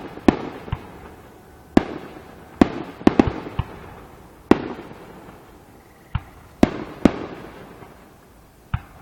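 Aerial firework shells bursting in a display finale: about ten sharp bangs at irregular intervals, each trailing off in a fading echo and crackle.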